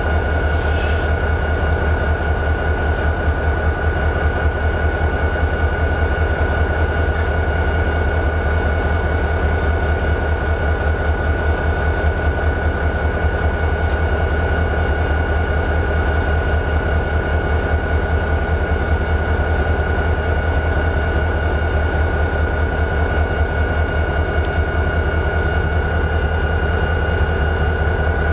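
EMD 645 turbocharged V16 diesel of a GP40-2 locomotive idling: a steady, evenly pulsing low rumble with a constant high whine above it.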